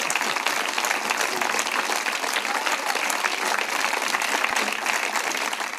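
Audience applauding steadily, a dense wash of many hands clapping, fading out near the end.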